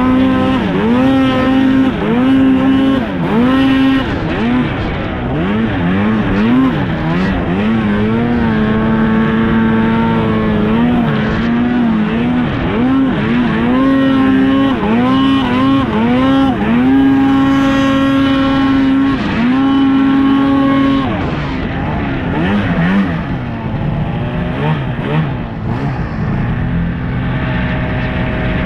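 Snowmobile two-stroke engine revving up and down again and again, holding high revs in stretches while riding, then settling to lower revs about two thirds of the way through.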